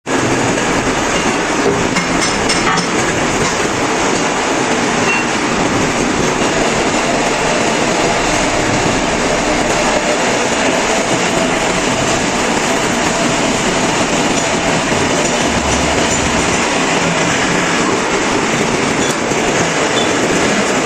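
Lathe running with its cutting tool at work: a steady, loud mechanical noise that keeps on without a break.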